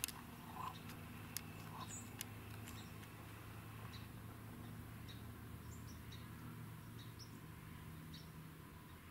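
Scattered faint, short high chirps of small birds over a low steady hum, with a few sharp clicks in the first two seconds.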